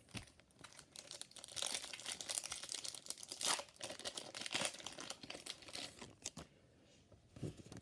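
Foil trading-card booster pack crinkling and tearing as it is handled and opened by hand, in a run of irregular crackles that dies down about a second before the end.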